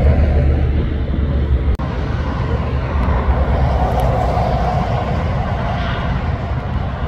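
Heavy trucks passing on a highway: steady engine and tyre noise with a deep rumble, strongest at the start. The noise drops out sharply for an instant about two seconds in.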